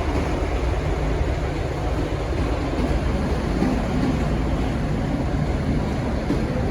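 Diesel engine of V/Line Y class shunting locomotive Y156 running with a steady low rumble, under a wide hiss of background noise.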